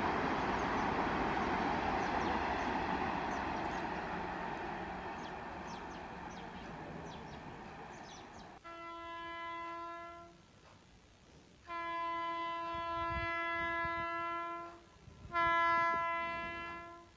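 Rushing wheel-and-air noise of an Indian Railways Vande Bharat train passing, fading away over about eight seconds. Then a train horn sounds three blasts of one steady pitch: short, long, short, the last the loudest.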